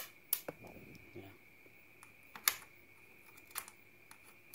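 A few sharp metallic clicks of a hand tool and fingers working at a motorcycle drive chain's master link. The loudest click comes about halfway through, over a faint steady high whine.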